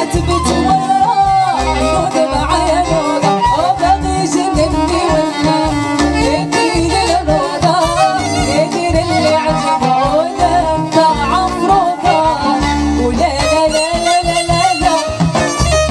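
Moroccan chaabi folk song performed live: a woman singing into a microphone over an amplified band with electric guitar and a pulsing bass line.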